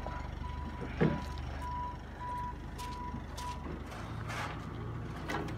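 A work vehicle's reversing alarm beeps about twice a second over its engine running, and the beeping stops a little before the end. One sharp knock comes about a second in.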